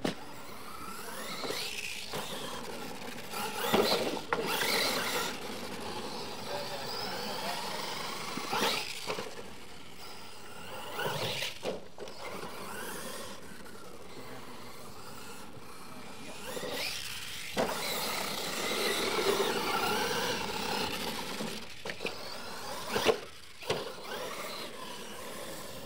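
Radio-controlled monster truck's motor whining up and down in pitch as it is throttled, with tyres scrabbling on dirt. Several sharp thumps from jump landings and impacts are spread through, the loudest near the end.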